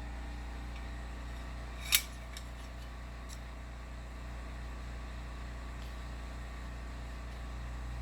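Steady low hum of a workshop, with one sharp click about two seconds in and two faint ticks shortly after.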